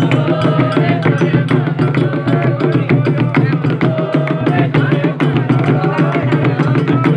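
Candomblé ritual music: hand drums playing a fast, dense rhythm under voices singing.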